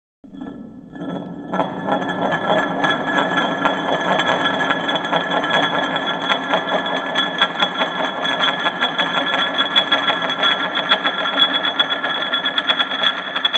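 Slowed-down metal weight plate rattling and ringing against a surface: a dense, uneven run of clicks over steady metallic ringing tones. It starts suddenly about a quarter second in and grows louder over the first couple of seconds.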